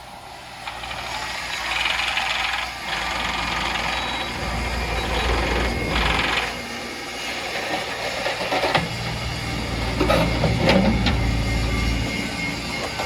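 Kubota U27-4 mini excavator's three-cylinder diesel running, with the load rising in surges at times and several sharp metallic clanks and rattles near the end.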